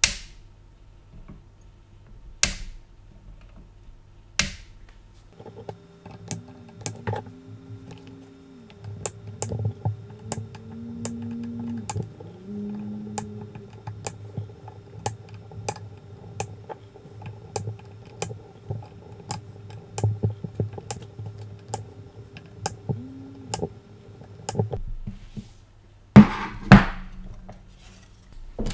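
Flush cutters snipping capacitor leads on a motherboard, three sharp clicks in the first few seconds. Then background music with a steady beat and a melody, and two loud knocks near the end.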